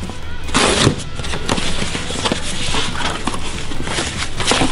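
Cardboard box being opened by hand: packing tape slit and torn, flaps pushed open and plastic wrapping rustled inside, a run of scraping and crinkling noises, loudest a little under a second in.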